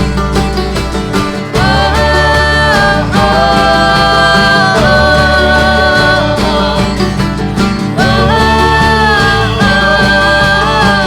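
Acoustic band playing a country/bluegrass-style song: plucked strings and a steady low bass pulse under a melody of long held notes that slide from pitch to pitch, starting about a second and a half in and again near the end.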